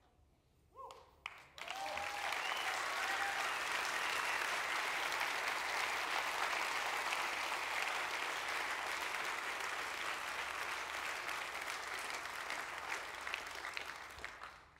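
Audience applauding, beginning about a second and a half in, holding steady and tailing off near the end.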